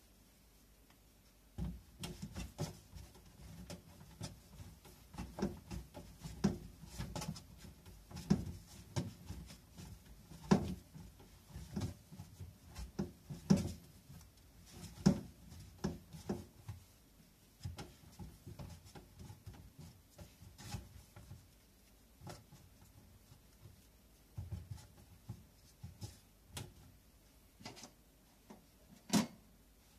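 Hands kneading and pressing bread dough on a wooden board: irregular soft thumps and slaps of dough against wood, with a few sharper knocks among them.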